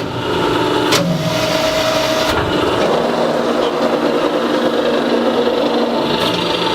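Hydraulic CNC press brake running: a steady mechanical hum with a few held tones, a sharp click at the start and another about a second in.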